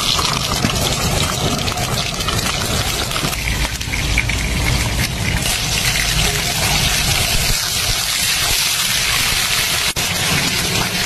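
Whole fish frying in hot oil in a stainless steel pan: a loud, steady sizzle that flares up as the fish goes into the oil.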